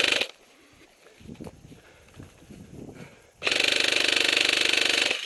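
Airsoft rifle firing full-auto: a short burst right at the start, then a long burst of about two seconds starting about three and a half seconds in, a fast, even mechanical rattle.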